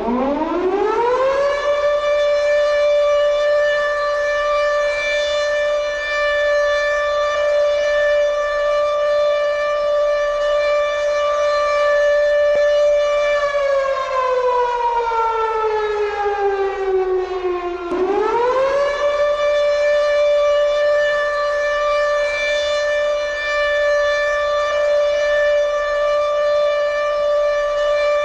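Civil defense air-raid siren used as a nuclear attack alert, winding up into a steady high wail and holding it. About halfway through it slowly winds down in pitch, then quickly winds back up and holds the wail again.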